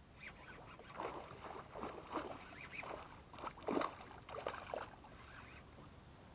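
A hooked pike thrashing and splashing at the water's surface during the fight, a run of irregular splashes with the loudest about four seconds in.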